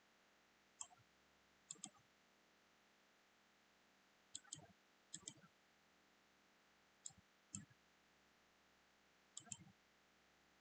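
Computer mouse clicking: about seven short clicks spread out, several coming in quick pairs, with faint room noise between them.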